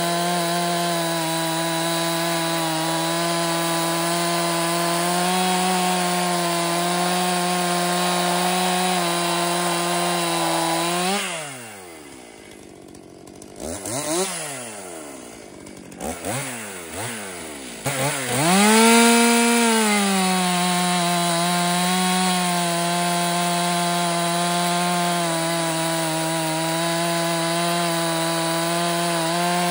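Stihl MS261C two-stroke chainsaw with a 3/8-pitch chain cutting through a log at steady high revs under load. About 11 seconds in the cut ends and the revs fall away to idle, with a few short throttle blips, then at about 18 seconds it revs up again and cuts steadily to the end.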